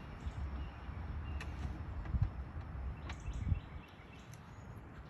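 Quiet handling noises as sawmill parts are lifted out of their shipping box: a few faint clicks and two soft knocks about two and three and a half seconds in, over a low rumble that fades a little before the end.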